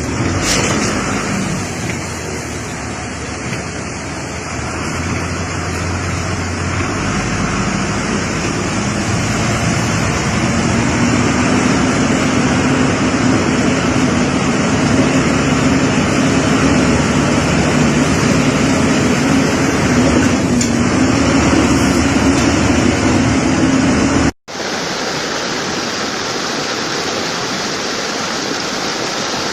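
Loud, steady rush of storm water and rain, with a low steady engine hum through the middle. An abrupt cut near the end switches to a steadier rushing of floodwater.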